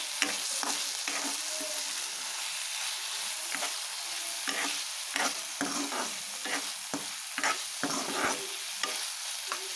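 Softened tomatoes, onions and chillies sizzling in oil in a kadai while a spoon stirs them, scraping and clicking against the pan at irregular moments.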